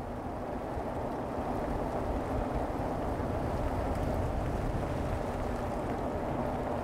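Steady low rumble of road and wind noise from a car driving along, heard from inside the car.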